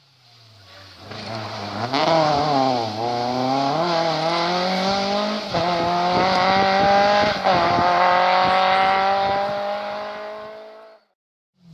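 Rally car engine accelerating hard, its revs climbing and dropping at several gear changes before holding a high, steady note. The sound cuts off abruptly near the end.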